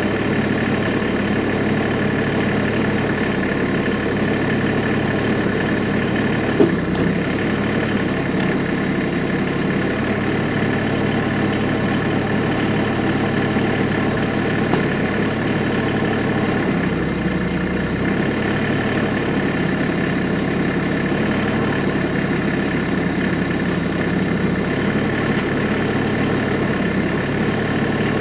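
Tractor engine running steadily at idle, with a single sharp knock about six and a half seconds in.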